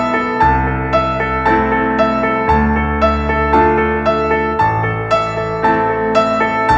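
Background music: soft piano playing a gentle, repeating pattern of notes, about two a second, over low sustained bass notes that change every couple of seconds.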